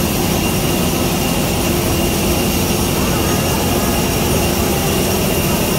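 Jet aircraft turbine noise on the apron: a steady, loud rumble with a constant high whine held throughout.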